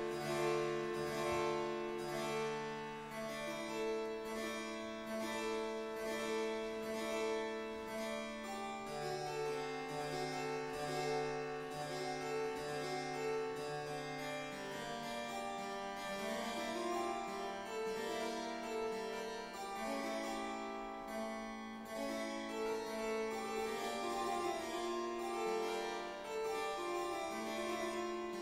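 Harpsichord and bassoon playing a Baroque concerto passage, the harpsichord plucked notes and the bassoon's low line filling in, with the oboe resting for most of it.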